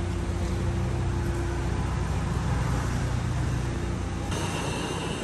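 Steady outdoor background noise with a low mechanical hum, of the kind that traffic or running engines make. About four seconds in it changes abruptly to a thinner, hissier background with a faint high whine.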